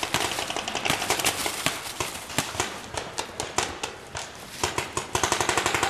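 Paintball markers firing: a quick, uneven string of sharp pops from several guns at once, with a faster, even burst near the end.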